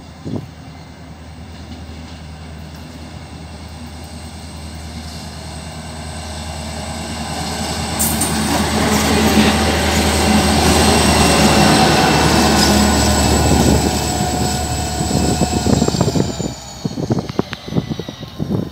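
Two EMD SD40-2 diesel locomotives running light pass close by: a steady low engine drone with a high steady whine over it, growing louder with the noise of wheels on rail as they come alongside, and the whine dropping in pitch as they go by. Near the end the sound turns uneven and gusty.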